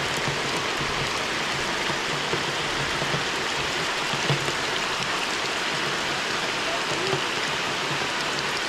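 Heavy tropical downpour falling steadily, an even hiss of rain with no let-up.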